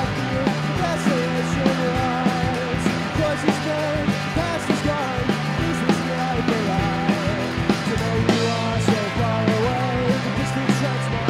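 Rock band playing live: drum kit, electric guitar and electric bass over a steady beat, with a lead melody that bends and wavers in pitch.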